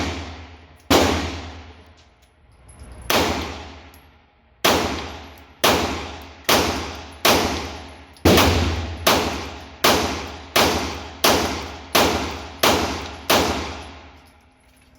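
A handgun fired about fifteen times at an indoor range, the shots roughly a second apart with longer gaps among the first few, each shot ringing off the range walls as it fades.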